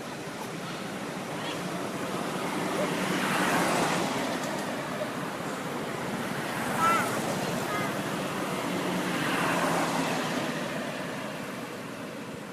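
Two vehicles passing one after the other on a nearby road, each a rising and falling rush of engine and tyre noise, with a short high squeak in between.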